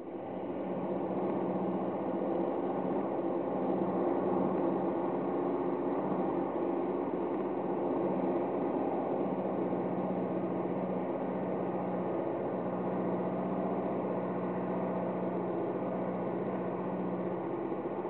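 Basement boiler-room machinery running: a steady mechanical hum with a low drone, coming up over the first second and then holding even.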